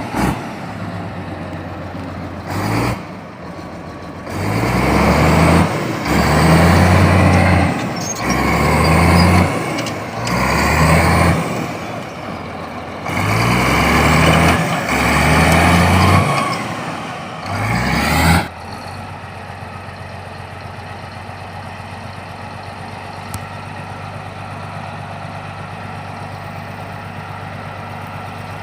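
Komatsu D70LE bulldozer's diesel engine revved up and down repeatedly, several times about two seconds apart, with a high whine climbing over each rev. About two-thirds of the way through it drops abruptly to a steady idle.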